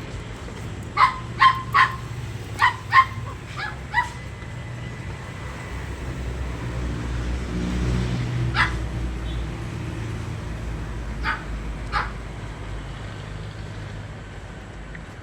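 A dog barking in short sharp yaps, a quick run of about six in the first four seconds, then one more and a final pair spread through the rest, over a low rumble that swells in the middle.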